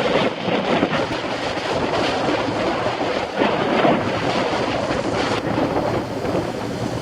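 Wind rushing over the microphone of a cyclist's camera while riding, mixed with the steady noise of road traffic.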